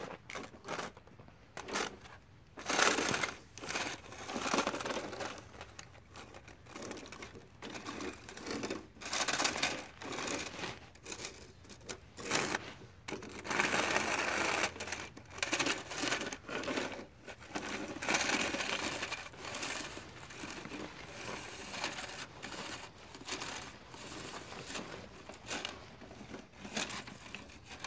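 Plastic toy plow truck pushed through thin snow on pavement, its plow blade scraping and snow crunching in irregular bursts.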